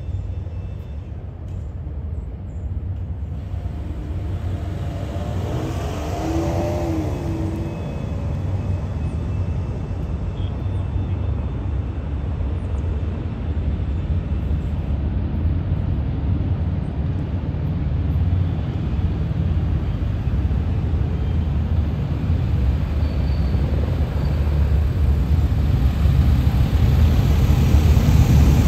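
A low engine rumble that grows steadily louder as it approaches, with a brief wavering tone about six seconds in.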